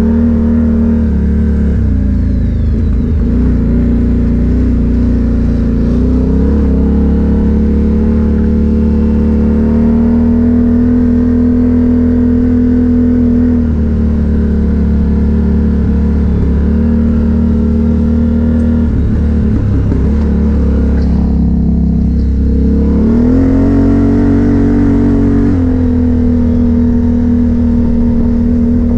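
ATV engine running under throttle while riding. The engine note holds steady for stretches and then shifts up and down in pitch, with a clear rise a little past the middle.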